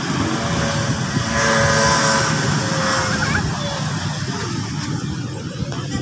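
Steady motor-traffic rumble, with a motor vehicle passing more loudly about a second and a half in.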